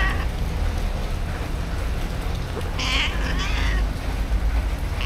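Cat meowing: a high meow about three seconds in, with the tail of one just at the start and another beginning as it ends. A steady low rumble runs underneath.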